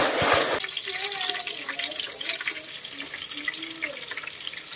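Battered squid rings (calamares) deep-frying in hot oil: a steady sizzle full of fine crackling pops. It opens with a loud rushing hiss lasting about half a second.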